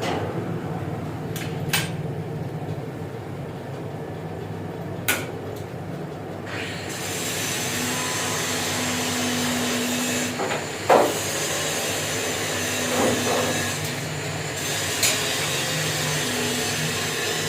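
Metal lathe running with a steady hum, with a few sharp clicks and knocks. About six seconds in, a louder steady hiss sets in and carries on.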